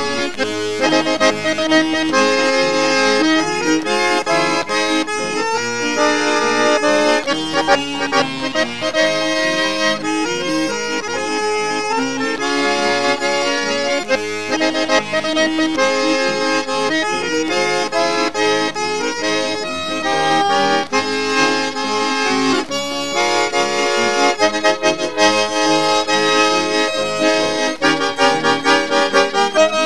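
Instrumental theme music with no singing: a melody in held notes over a steady accompaniment.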